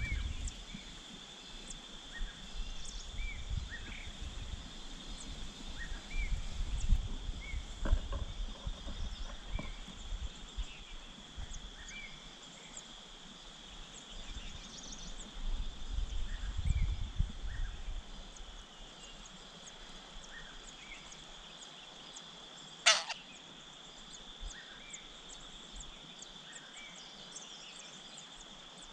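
Outdoor nature sound: a steady, high insect drone with many short bird chirps scattered through it and a low rumble that fades out after about 18 seconds. About 23 seconds in there is a single sharp, loud sound, the loudest thing in the stretch.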